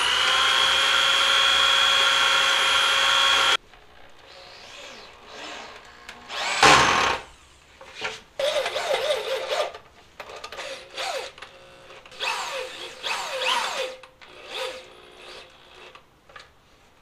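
Power drill running at a steady speed, boring through an aluminum plate, for about three and a half seconds, then stopping suddenly. After that come shorter, quieter bursts of the drill speeding up and slowing down, with a few sharp knocks.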